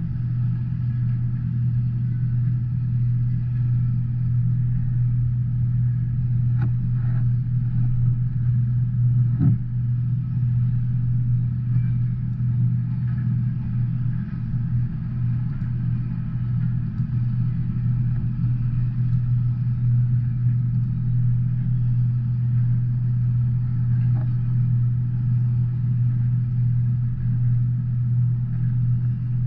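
Double-stack intermodal freight train rolling past, a steady low rumble of wheels on rail, muffled through a closed window.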